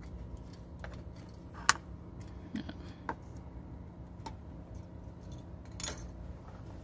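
Small metallic clicks and ticks from an accelerator cable's end fitting being handled and worked free from the throttle linkage on an Isuzu 6HH1 diesel engine. There is one sharp click about 1.7 seconds in, followed by a few lighter ones.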